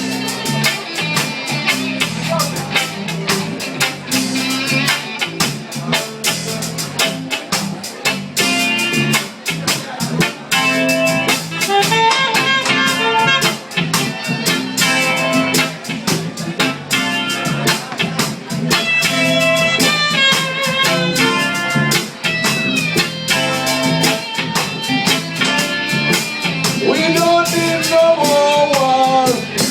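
Live band playing a blues-style instrumental passage: guitar over bass and a steady drum beat, with the guitar bending its notes near the end.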